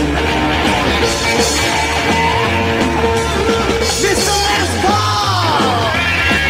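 Live rockabilly band playing an instrumental break: electric guitar soloing with bent notes over a walking upright bass line.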